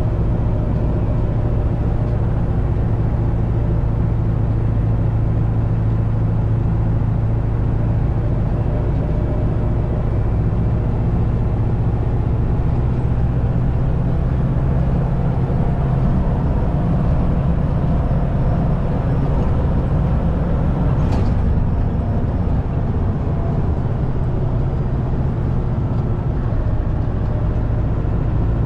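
Scania 144's V8 diesel engine heard from inside the cab while the truck cruises, a steady low drone over tyre and road noise. A brief sharp sound cuts through about two-thirds of the way in.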